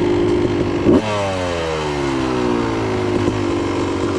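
Yamaha YZ125X 125cc two-stroke dirt bike idling, with a quick throttle blip about a second in; the revs fall back down to a steady idle over about two seconds.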